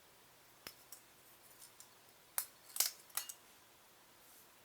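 A few sharp metallic clicks and snaps as a tool prises the stainless-steel shield off an iPad 2 logic board, the loudest bunched together past the middle.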